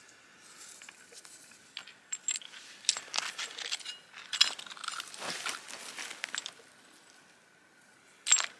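Loose stones and stone flakes clicking and scraping against each other and the rocky ground as they are handled: a run of small clicks and crunches through the middle, then one sharp click near the end.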